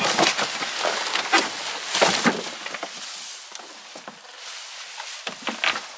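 Cardboard bike box and packaging rustling and scraping as a bicycle is pulled out, in irregular bursts that are loudest at the start and about two seconds in, then quieter handling with a few light knocks near the end.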